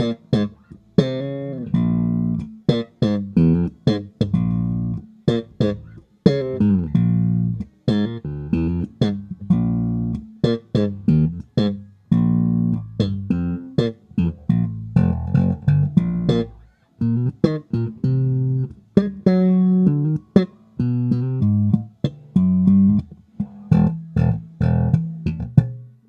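Momose MJ-Kyozakura II electric bass played solo, without accompaniment: a string of plucked notes and short phrases with brief pauses between them. Each note starts with a sharp attack, and the last note dies away at the end.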